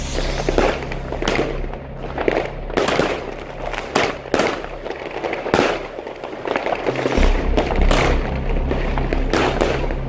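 Weco 'Tiger & Dragon' 21-shot firework battery (cake) firing: a rapid series of launch bangs and shell bursts, about one or two a second, over background music.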